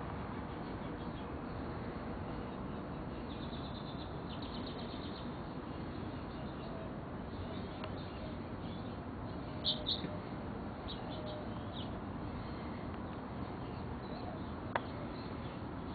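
Small birds chirping outdoors: short high chirps come and go over a steady background hiss, the loudest pair a little under halfway through. A single sharp click sounds near the end.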